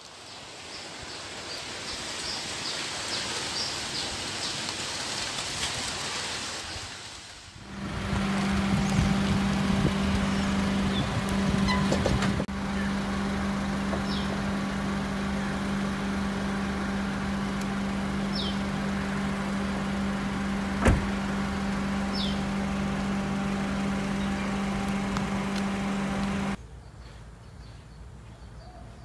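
Car sounds outdoors: a car moving slowly, then a steady low hum with a few short bird chirps and one sharp click. Near the end it drops to quieter outdoor background.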